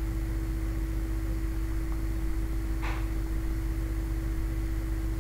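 Steady background hum with a constant low-pitched tone over a faint hiss, and one brief faint click about three seconds in.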